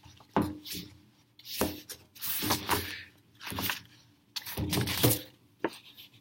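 Pages of a paperback picture book being turned and handled, paper rustling and rubbing in a series of short bursts.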